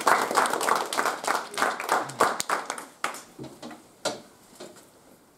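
A small group of people applauding by hand. The clapping is dense at first, thins to a few separate claps, and dies away about four to five seconds in.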